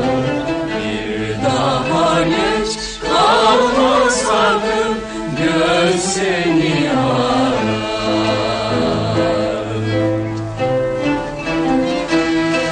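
A Turkish classical music choir singing a şarkı in makam nihavent, accompanied by a traditional ensemble with bowed strings, from an old radio recording.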